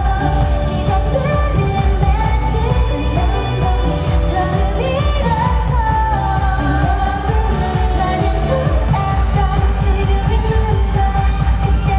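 K-pop dance-pop song: women's group vocals over a steady, driving beat.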